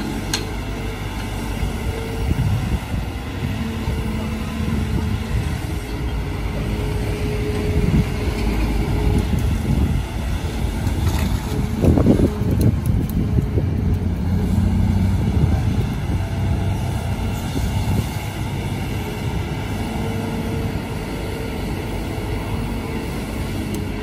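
Kobelco SK200 hydraulic excavator's diesel engine running under load as the bucket digs in wet mud, a continuous steady drone that swells to its loudest about halfway through.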